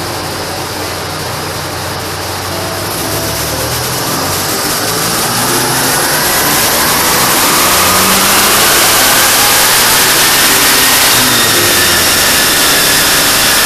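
Ford Granada's engine running under load on a rolling-road dyno, revs climbing during a power run: it gets louder over several seconds, with a rising whine, then holds at full noise near the top.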